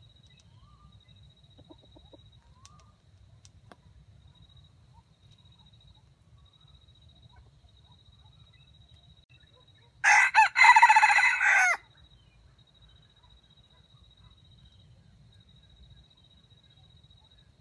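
Red junglefowl rooster crowing once, a short, clipped crow of under two seconds about ten seconds in.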